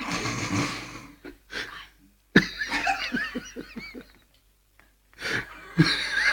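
Laughter with breathy gasps and exhales: a loud breathy burst at the start, then, after a sudden onset about two and a half seconds in, a run of quick pulses at roughly six a second.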